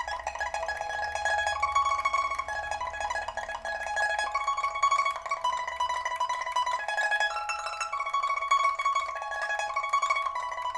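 Solo pipa, made of old Dalbergia oliveri wood with a newly fitted soundboard and frets, playing a continuous plucked melody. Its notes are held with rapid repeated plucking between quicker note changes. It is strung with a steel first string and copper second to fourth strings.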